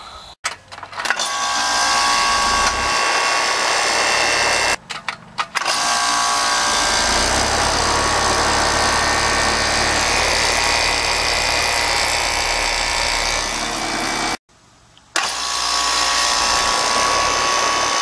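Rheem outdoor heat pump/air-conditioner condenser unit running, its compressor and condenser fan making a loud, steady mechanical noise. It is heard in spliced clips that cut out abruptly about five seconds in and again about fourteen and a half seconds in.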